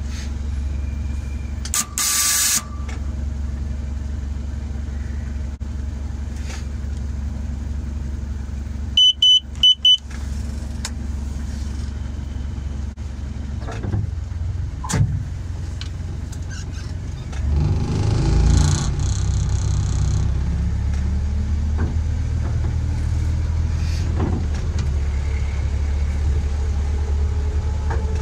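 A miniature-railway locomotive's engine idling with a steady low hum, with a short hiss about two seconds in and three short high-pitched beeps about nine seconds in. Past halfway the engine revs up and its note climbs steadily as the train pulls away and gathers speed.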